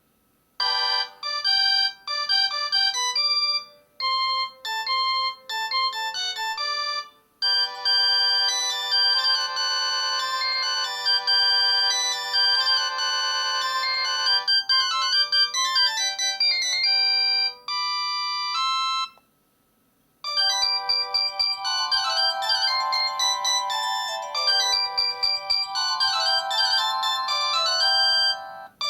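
Built-in ringtones of a MaxCom Strong MM917 3G feature phone played one after another. A few short electronic melodies are each cut off after a few seconds. Then a longer tune runs for about eleven seconds, and after a brief silence another begins.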